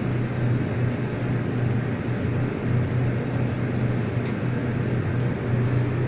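Hydraulic elevator running upward: the pump motor's steady hum and drone with the car in travel, heard from inside the car.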